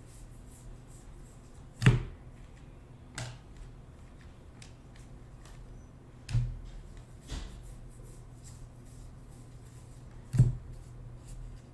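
Trading cards and packs being handled on a table: five sharp knocks at uneven intervals, with lighter ticks and taps between them, over a steady low hum.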